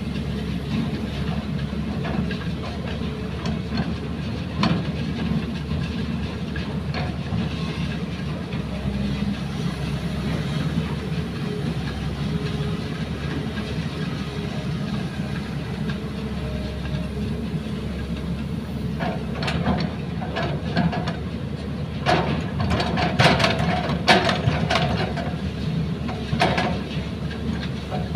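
JCB crawler excavator's diesel engine running steadily under load as it digs and swings sand. In the last third, a run of sharp clattering knocks sits on top of the engine noise.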